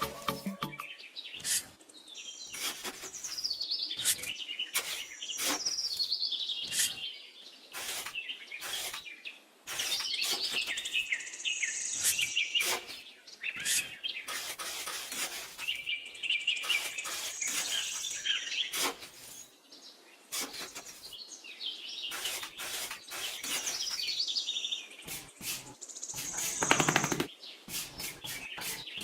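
Small birds chirping, with repeated trilled phrases that slide down in pitch every few seconds, and scattered sharp clicks in between.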